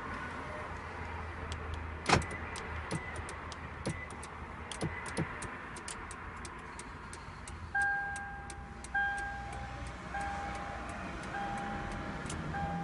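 A run of sharp clicks inside a Toyota with an EVO-ALL remote-start bypass module wired in, one loud click about two seconds in. It is followed by an electronic beep repeating about once every second and a bit, and a low hum comes up near the end.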